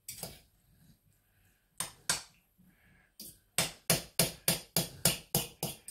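Metal utensil knocking against the side of a stainless steel saucepan while fluffing cooked basmati rice: a few scattered clicks, then from about three seconds in a quick run of about three taps a second.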